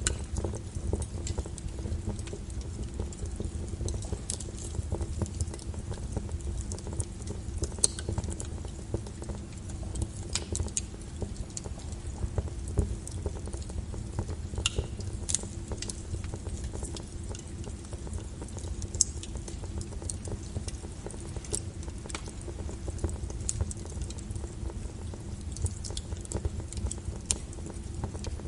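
Wood fire burning in a fireplace: a steady low rumble with irregular crackles and sharp pops throughout.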